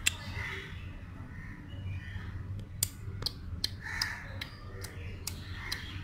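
Crows cawing several times, with scattered sharp clicks and a steady low hum underneath.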